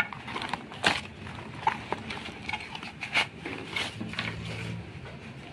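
Cardboard box and bubble wrap being handled: a series of sharp rustles, crinkles and taps as a bubble-wrapped pan is lifted out of the box.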